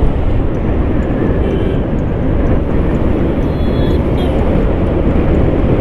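Steady rush of riding wind on the microphone, over the single-cylinder engine and tyre noise of a Hero Xtreme 160R motorcycle cruising at about 60 km/h. A few faint, brief high tones come through, around a second and a half in and again near the middle.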